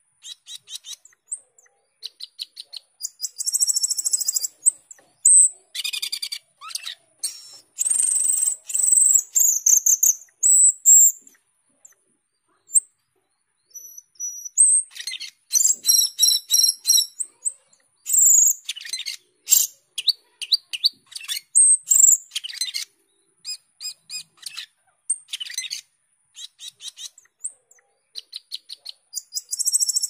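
Asian glossy starling singing a busy, high-pitched song of rapid chirps, clicks, buzzy rattles and whistles, in bursts of a second or two with short pauses between.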